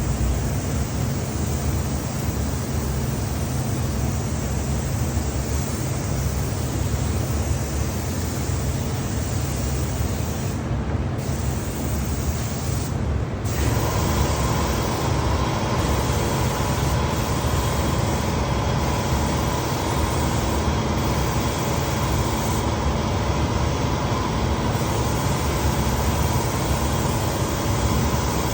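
Lacquer spraying equipment running: a steady low rumble with an even hiss. About halfway through, the sound shifts and a steady higher hum with a brighter hiss comes in.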